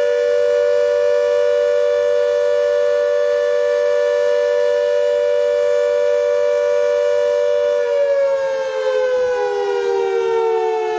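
Air raid siren wailing: two close tones held at a steady pitch for about eight seconds, then slowly falling near the end. It is the air-raid warning signal to be alert for an attack.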